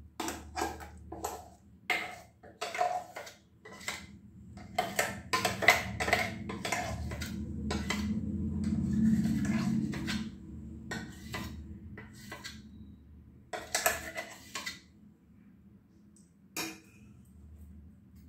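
Steel spoon scraping and knocking against a steel mixer-grinder jar and a steel bowl as thick ground banana paste is scraped out: a quick run of clinks and knocks, thinning to a few near the end.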